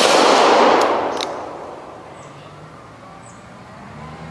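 A single shot from a Smith & Wesson Model 547 9mm revolver at the very start. Its report echoes and dies away over about a second and a half, with two faint sharp ticks about a second in.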